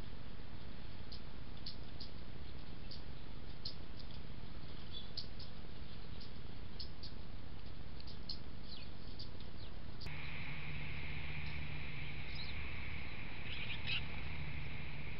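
Small songbirds chirping: short, high chirps scattered every second or so. About ten seconds in, the background changes abruptly to a steady high drone, with a few more chirps over it.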